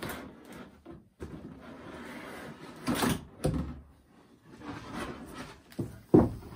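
Plastic packaging being handled: a clear plastic blister tray and plastic bag rustling and crinkling as they are pulled out of a cardboard box, with several knocks against the box, the loudest near the end.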